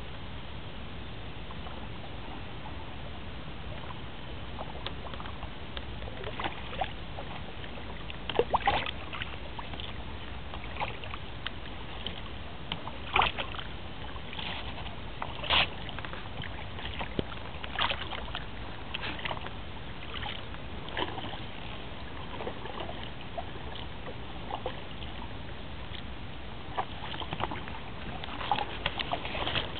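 Kayak paddle blades dipping into river water, short irregular splashes every second or two over a steady background hiss.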